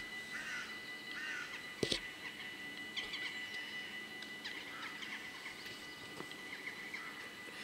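Birds calling: a run of evenly repeated harsh calls, then scattered chirps, over a faint steady high tone. A single sharp knock sounds about two seconds in.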